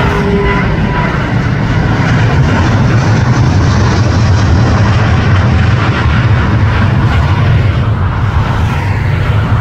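Jet airliner flying low overhead, its engines making a loud, steady rumble with a hiss on top.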